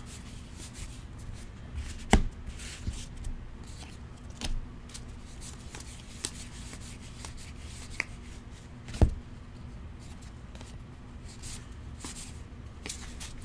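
2019 Topps Allen & Ginter baseball cards being flipped through by hand: soft sliding and rubbing of card stock, with a few sharp taps as cards snap against the stack, the loudest about two and nine seconds in.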